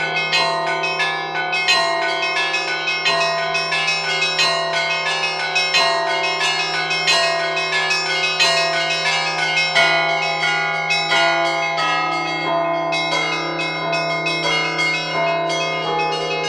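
Russian Orthodox church bell ringing on the Danilov bells: small bells struck in quick, rhythmic patterns over a low, steadily sounding tone. The pattern of bells changes about thirteen seconds in.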